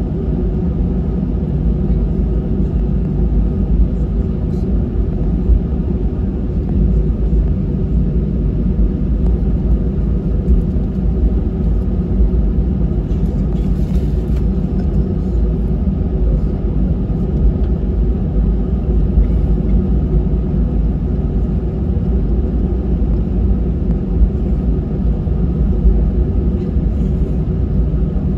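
Airbus A320 cabin sound while taxiing: a steady low rumble from the engines at taxi power and the wheels rolling over the taxiway.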